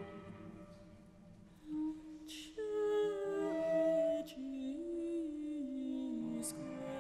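Quiet contemporary chamber music: after a near-silent second or so, soft sustained cello notes played without vibrato move slowly in small steps and slides, with a second sustained line above them in places. Short breathy hisses come about two and a half and six and a half seconds in.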